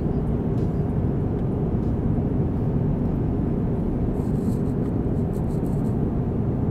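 Steady low rumble of cabin noise inside an Airbus A350 in cruise: engine and airflow noise, even and unbroken.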